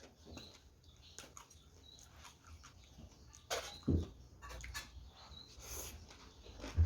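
Close-miked eating sounds from a person eating rice-noodle papaya salad and kimchi: small wet chewing and mouth clicks, with a louder smack and low thud about four seconds in and another thud near the end.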